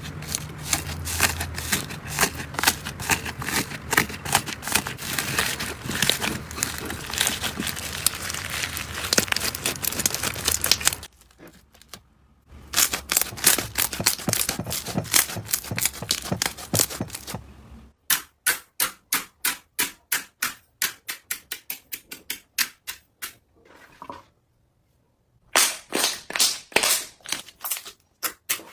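Slime being squeezed and poked, giving dense, rapid clicking and popping crackles. Past the middle it slows to a run of separate clicks, about three or four a second, then turns dense again near the end.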